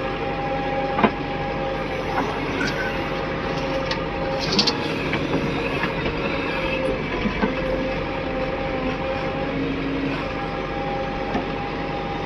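Heavy diesel engine running steadily with an even pitched hum, with a few sharp metallic knocks, one about a second in and a louder one midway.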